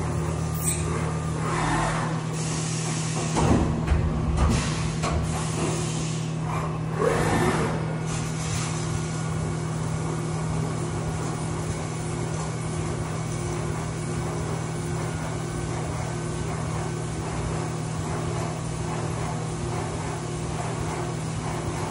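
Haas CNC vertical mill cutting a part under flood coolant: a steady hum from the spindle and cut with the hiss and splash of coolant spray, and a few louder surges of cutting noise in the first eight seconds.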